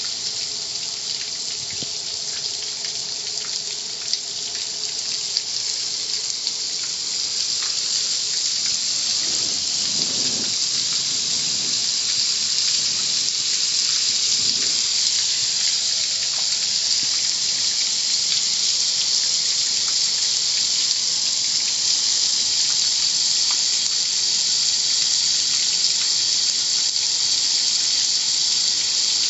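Steady hiss of water spraying in a car wash, gradually getting louder over the first half.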